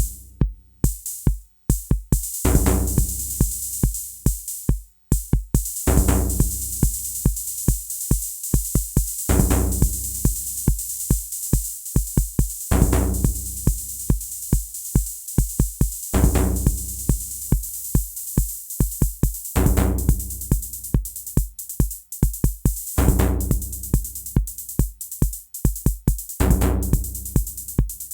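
A sequenced electronic drum pattern from a home-built TR-606 clone drum machine, played with a modular synthesizer note that sounds about every three and a half seconds and fades away. The pattern breaks off briefly twice in the first five seconds, then runs on with a steady high hiss over the hits.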